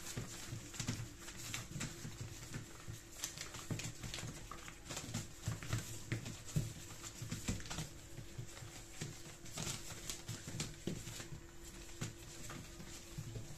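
Almost three-week-old puppies tottering and scrabbling over sheets of newspaper: irregular rustling and crinkling of paper with many small pattering taps of paws.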